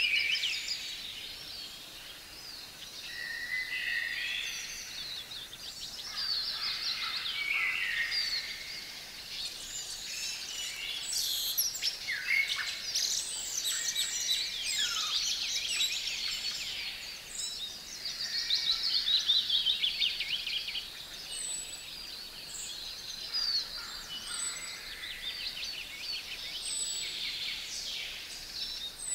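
Several songbirds singing at once, overlapping chirps, trills and warbled phrases, with a thin high note repeated about every two seconds in the last third.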